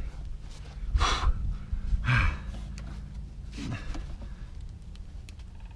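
A man's forceful breaths and grunts of effort, two sharp exhalations about a second and two seconds in and a lower grunt near four seconds, as he pushes a tire plug into the tread with the insertion tool.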